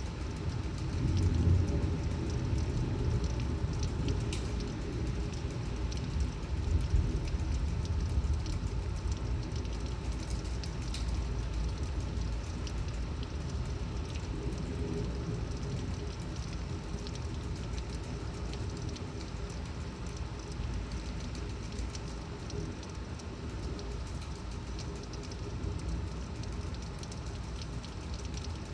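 Torrential thunderstorm rain pouring steadily, with scattered drops ticking. A low rumble swells in the first several seconds, peaking twice, then eases to a steadier background.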